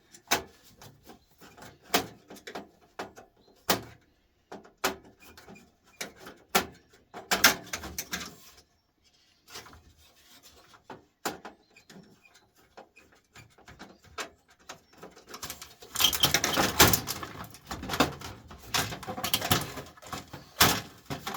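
Scattered clicks and knocks of a screwdriver and metal computer parts being handled during a desktop teardown, turning into a denser run of clattering about three-quarters of the way through.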